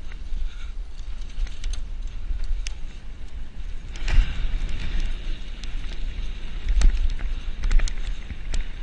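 Mountain bike ridden fast over a rough dirt forest track: wind rumbling on the camera's microphone, with the bike rattling and scattered sharp clicks and knocks from bumps. Louder jolts come about four seconds in and again near seven seconds.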